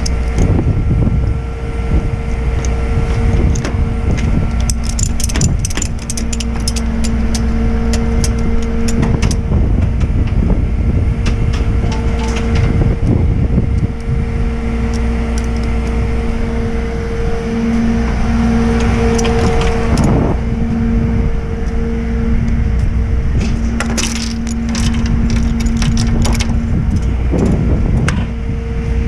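Ratchet strap being worked by hand on a flatbed tow truck's deck, clicking in clusters, with knocks and rattles of strap hardware and chain against the metal. A steady engine hum runs underneath.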